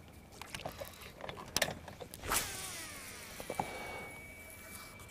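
A cast with a baitcasting rod and reel. The rod swishes about two seconds in, then the spool whirs as line pays out, the whir falling in pitch as the spool slows. A few clicks from the reel follow.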